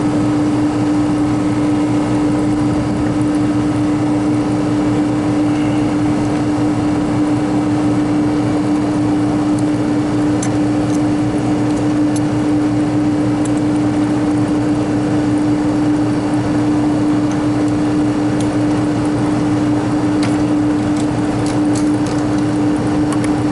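Walk-in freezer condensing unit running: a steady, loud hum from the refrigeration compressor and condenser fan, with a few faint ticks. It is running with high head pressure, which the technician puts down to a condenser with plugged fins.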